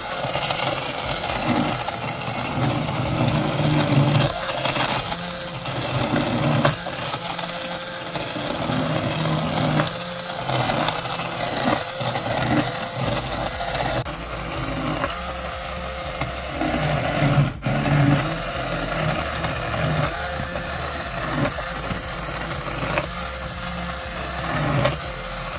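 Old Pampered Chef immersion blender running steadily in a pot of thick roasted red pepper soup, puréeing the cooked peppers and onion smooth, with one brief break partway through.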